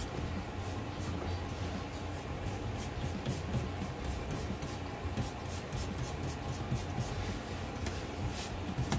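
Paintbrush stroking paint onto a wooden board, a quick swish with each stroke, a few strokes a second, over a steady low hum.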